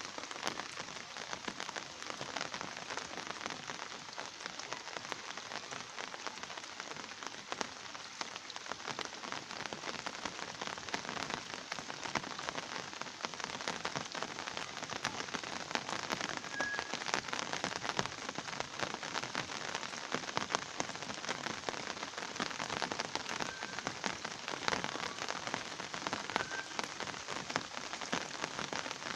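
Steady rain falling on surfaces, a dense, even hiss of drops.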